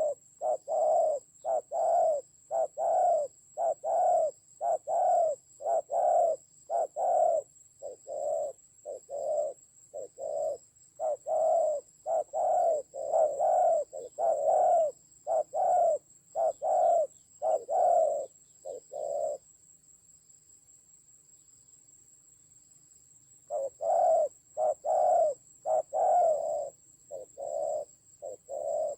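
Spotted doves cooing: short, low, mellow coos at about two a second in long runs, breaking off for about four seconds past the middle and then starting again. A faint steady high whine runs underneath.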